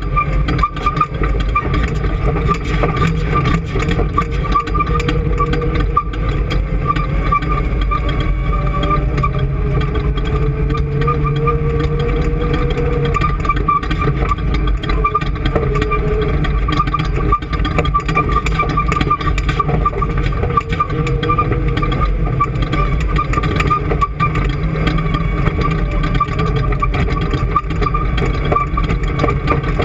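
An engine running steadily, with a steady high whine above the low drone and a slight rise and fall in pitch partway through.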